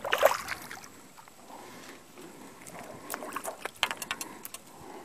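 A small hooked fish splashing at the water's surface as it is drawn in on the line, loudest at the start, followed by a few sharp ticks and taps in the second half.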